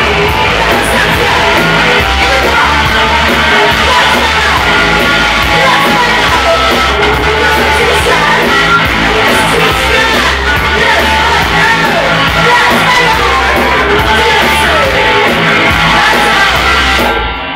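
Live rock band playing loud, with electric guitar and bass guitar under a woman singing and yelling into a microphone. The song stops abruptly near the end.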